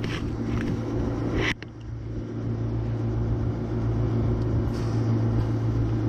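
Packaged terminal air conditioner (PTAC) heat pump running in cooling mode: a steady low hum and rumble. There is a short knock about a second and a half in.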